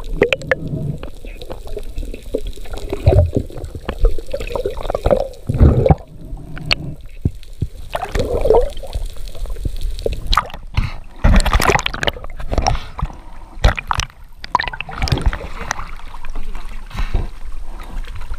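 Muffled underwater gurgling and sloshing through a camera housing, with scattered sharp clicks and knocks from handling the spear and a speared tuna.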